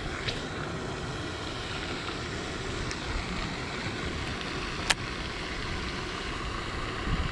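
Steady outdoor background noise at the water's edge, with a single sharp click from the baitcasting reel about five seconds in.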